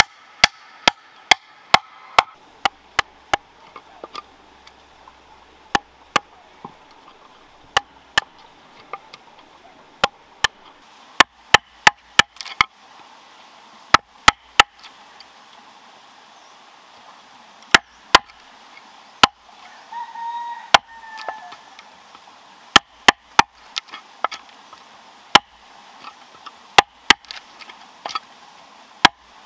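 Wooden club striking the handle of a steel chisel as it cuts a notch into a green bamboo tube: sharp, irregular knocks in quick runs with pauses between.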